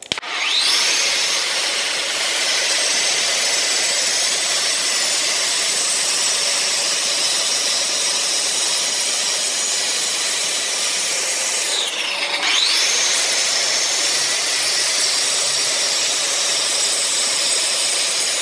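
Festool DSC-AG 125 wall chaser with diamond discs cutting a pair of parallel slots in plaster for a cable channel. The motor whines up to speed at the start, runs steadily through the cut, then dips in pitch and comes back up about twelve seconds in.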